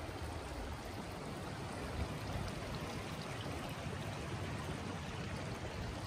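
Steady rushing of flowing water, with a low rumble underneath.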